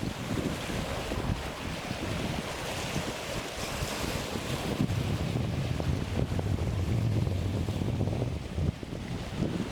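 Strong wind buffeting the microphone over a rough, choppy sea with waves and spray; the low wind rumble grows heavier about halfway through.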